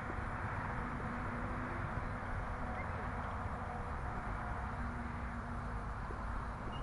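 Steady open-air noise with a low rumble, and faint, distant calls from footballers on the pitch.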